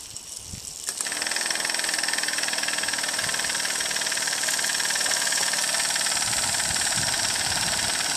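12-volt DC boat pump switching on about a second in and running steadily, pushing rain-tank water out of a brass hose nozzle, which sprays hard under the boosted pressure.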